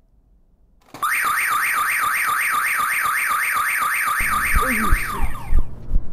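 Shop anti-theft exit alarm going off: a loud electronic tone warbling rapidly up and down, about five sweeps a second, starting about a second in and cutting off near the end. Low thumps and noise join it in the last couple of seconds.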